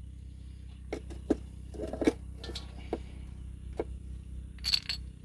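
Light metallic clicks and clinks of piston shoes and retainer plate as the piston set of a disassembled excavator hydraulic piston pump is lifted out of its cylinder block, with a short scraping clatter near the end, over a steady low hum.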